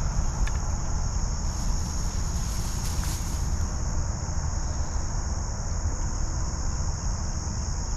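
Steady, unbroken high-pitched chorus of insects singing, over a constant low rumble.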